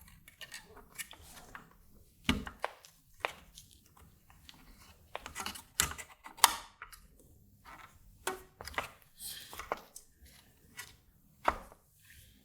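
Irregular small clicks, taps and knocks of hands handling the kit's circuit board and toggle switches while fitting elastic bands between the switches, with a few sharper knocks among them.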